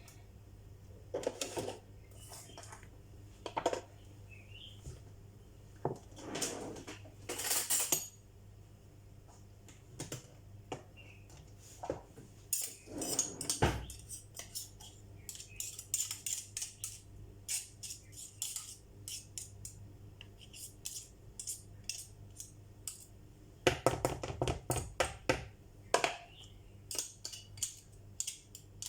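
A kitchen utensil clinking and scraping against a mixing bowl in irregular bursts as a muffin mixture is stirred.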